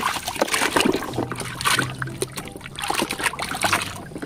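Water splashing and trickling in many short irregular splashes as a mud-caked toy is washed clean.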